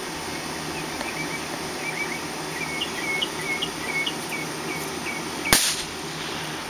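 A single firecracker bang about five and a half seconds in, the loudest sound, with a short ringing tail. Before it, a run of about a dozen short, high chirps over a steady low background hum.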